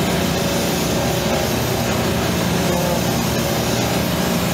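Steady hiss of a brazing torch flame held on a copper refrigerant line, over the steady hum of a running refrigeration compressor rack.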